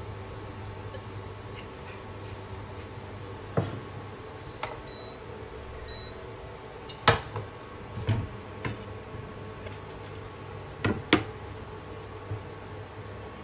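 Induction cooktop running with a steady electric hum, giving two short high beeps about five and six seconds in. Several sharp knocks of cookware and utensils, the loudest about seven and eleven seconds in.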